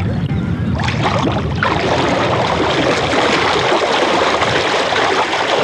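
Close, loud rushing and splashing of river water, swelling about a second and a half in and cutting off abruptly at the end, with a low rumble under it at first.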